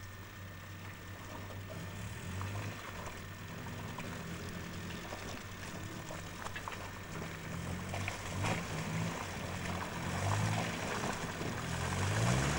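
Land Rover 90's engine running at low speed under load as it crawls along a muddy rutted track, its note stepping up and down with the throttle and rising near the end.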